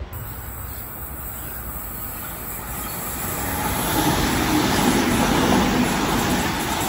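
NSW TrainLink Oscar H-set electric train coming in along the platform and running past close by. Its wheel and motor noise grows steadily louder from about three seconds in.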